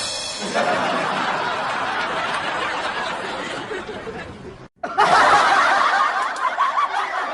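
Laughter sound effects: one laughing clip, then a brief break about four and a half seconds in, and a second, louder laugh.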